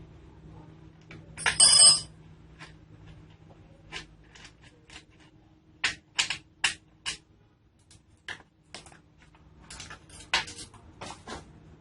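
Metal parts clinking and knocking as a chainsaw attachment is taken apart from an angle grinder, with one loud ringing metallic clink about a second and a half in, followed by scattered lighter clicks.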